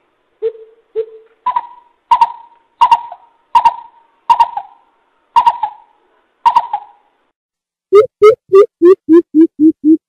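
Coucal calling: a couple of single deep hoots, then a string of higher, sharper notes under a second apart, and near the end a fast run of deep hoop notes about three a second.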